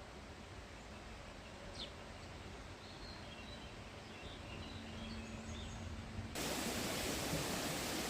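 Quiet rural ambience with a few faint bird chirps, then about six seconds in a sudden change to a steady, louder rushing noise like a river's running water.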